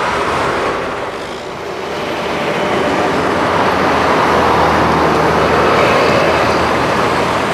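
Street traffic with a bus driving past: a steady rush of engine and road noise that dips about one and a half seconds in, then swells again and eases slightly near the end.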